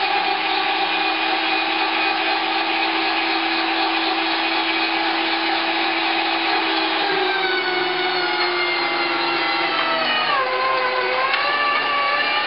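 Electric meat grinder's motor running steadily as raw meat and bone are pushed through a coarse grinding plate. Its pitch shifts about seven seconds in, then sags briefly about ten seconds in and comes back up.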